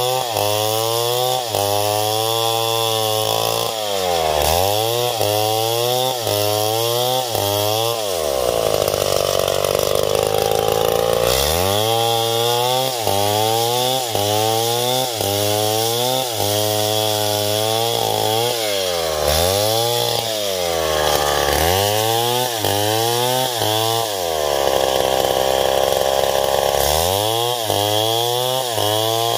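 Stihl MS070 two-stroke chainsaw ripping a coconut palm log lengthwise into planks. Its engine speed rises and falls about once a second as it works through the cut, with two stretches of several seconds held at high revs.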